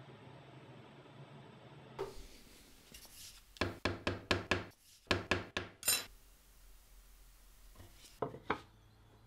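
A quick run of about nine sharp wooden knocks and cracks over some two seconds, then two more a little before the end, as the charred wooden board is worked to free the cast metal fried egg that sets on it.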